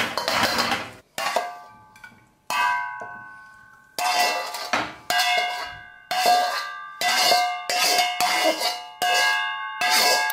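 A spatula knocking and scraping against a black metal wok as the stir-fry is tipped out onto a plate. Each knock leaves the wok ringing with a bell-like tone, and the knocks come faster toward the end.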